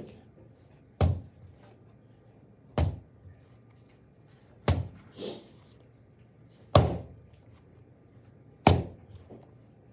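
Soft clay slapped down hard onto a work table five times, about every two seconds, as a big slab is thrown out by hand.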